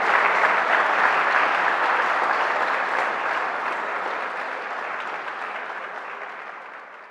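Crowd applauding, slowly fading away over the last few seconds.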